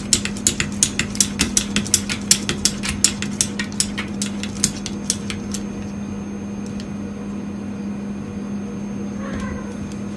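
Dry cat food clicking at feeding time: sharp light clicks at about four a second for the first five seconds or so, over a steady low hum. About nine seconds in there is a short pitched sound.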